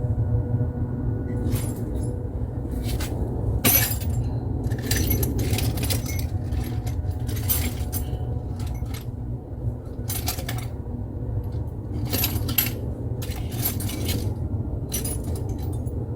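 Hand tools clicking and clinking irregularly against metal, over a steady low hum.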